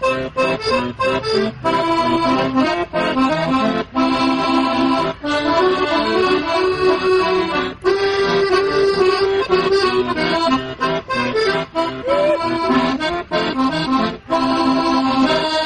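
Instrumental break in an old-time country song, led by accordion, with no singing.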